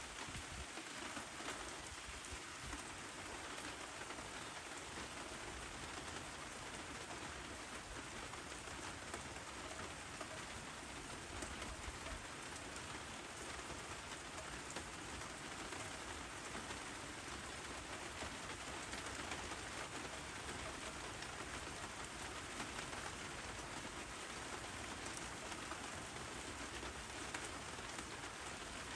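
Steady rain falling, an even sound with no let-up.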